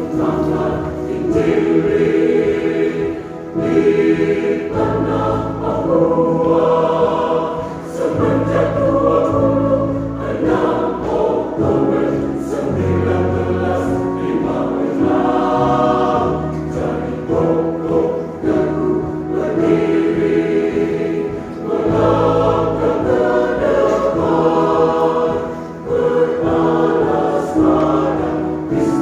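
Church choir singing a hymn in several-part harmony, holding chords that change every second or two.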